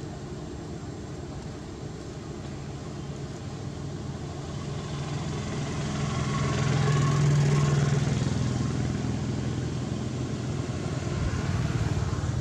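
A motor vehicle engine running nearby, its low hum growing louder to a peak about seven seconds in, then fading, with a second swell near the end.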